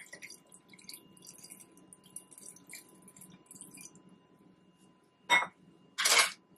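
Water poured in a thin stream from a small stainless measuring cup into a glass mason jar of mango pieces: a faint trickling and dripping. Near the end come two short knocks, the second one louder.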